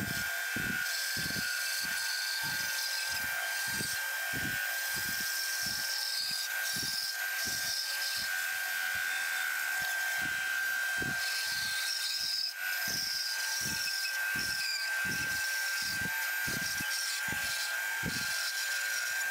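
Bandsaw running and cutting a thick laminated hardwood blank into a circle, with a steady whine and a cutting hiss that swells and eases as the blank is turned through the blade. A low pulse repeats about twice a second throughout.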